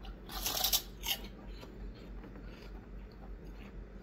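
Crisp pork rinds crunching as they are bitten into, two sharp crunches about half a second and a second in, then quieter chewing.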